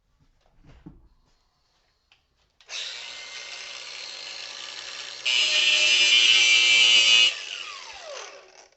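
Electric grinder started up and running, then grinding against a brass lamp-holder piece for about two seconds, much louder, to take the nickel plating off and show the brass. It is switched off and winds down with a falling whine.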